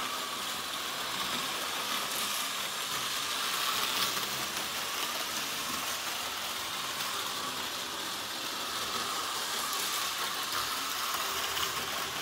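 HO scale Amtrak model train running on its track: a steady whir of the locomotive's small electric motor and gears, with the wheels clicking and rattling over the rails.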